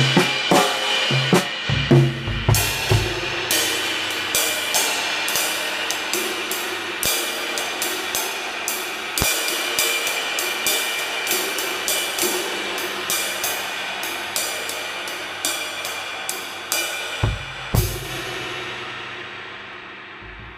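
Drum kit played with Spizzichino ride cymbals and Matt Bettis hi-hats: a steady cymbal pattern with low drum hits near the start. A few heavier drum hits come about three-quarters of the way through, and then the cymbals are left to ring out and fade.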